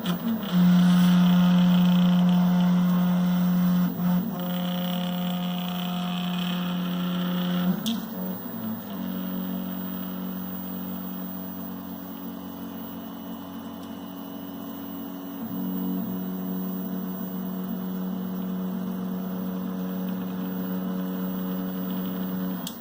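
MPCNC stepper motors humming with a steady pitched tone as the machine moves, loud for the first several seconds with a short break near 4 s and a pause near 8 s, then quieter. This is the strange humming the uploader hears when the X and Y axes move diagonally together.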